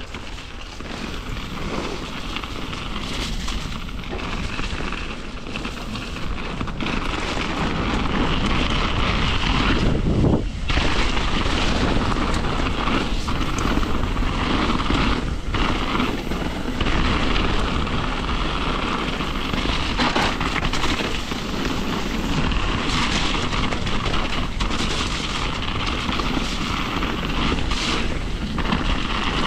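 Mountain bike riding fast down a dirt trail: knobby tyres rolling over leaf litter, wood chips and rock, with wind rushing over the action camera's microphone. The noise builds over the first several seconds as the bike picks up speed, then stays steady, with a few sharp knocks from bumps.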